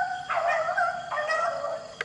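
Beagles baying while running a rabbit: a call trails off just after the start, then two more long bays follow, each under a second and dropping slightly in pitch.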